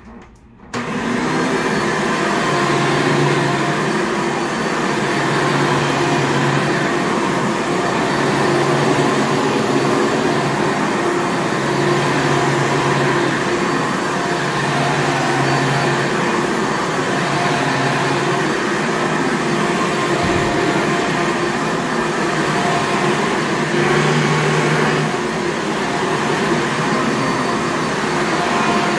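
1994 Hoover Elite Supreme upright vacuum cleaner switched on about a second in, then running steadily.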